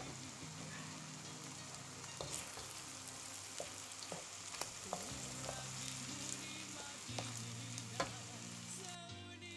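Egg fried rice frying and sizzling in a hot pan while a spatula stirs and tosses it, with scattered scrapes and knocks of the utensil against the pan and one louder knock near the end.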